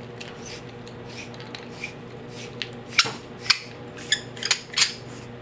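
Dive flashlight's head being twisted counterclockwise to unscrew it from the battery tube, with light scraping of the threads and then a run of about five sharp clicks in the second half.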